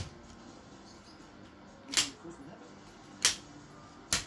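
Three sharp clicks, roughly a second apart, as the camp chair's metal pole frame is handled at its plastic hub.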